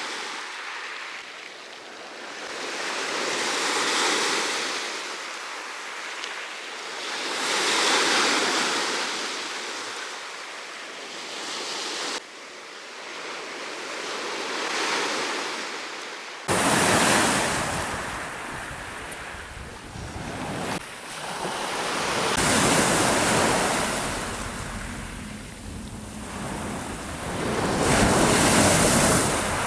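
Black Sea surf breaking on a beach, swelling and fading in slow surges every few seconds. A bit past halfway, wind starts buffeting the microphone and adds a low rumble.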